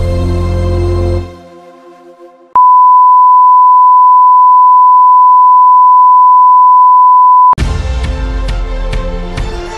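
Station-ID jingle music fades out, then a steady 1 kHz broadcast test tone (the bars-and-tone reference beep) sounds loudly for about five seconds. It cuts off suddenly as the jingle music starts over.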